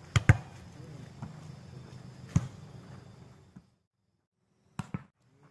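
A volleyball being struck by players' hands and arms during a rally: sharp slaps, two in quick succession at the start, one about two seconds in, and another quick pair near the end, over faint players' voices.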